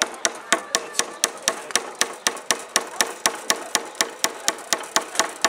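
Hammer driving a nail into a wooden frame, in quick, even blows of about five a second.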